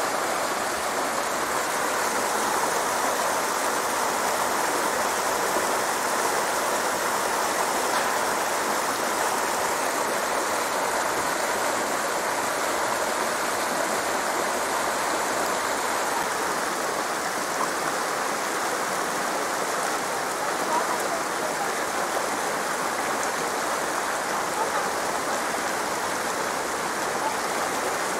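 Water rushing down a mountain stream, a steady, unbroken rush.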